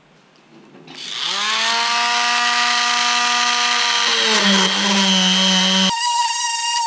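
Handheld rotary tool with a small burr bit spinning up about a second in and running with a steady whine while it enlarges a hole in a wooden hull bulkhead; its pitch drops a step about four seconds in. The whine cuts off abruptly near the end, giving way to a higher, wavering whine.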